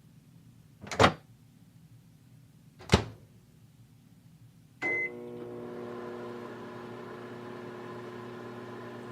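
Two clunks about two seconds apart, then a short beep, and a microwave oven starts running with a steady hum.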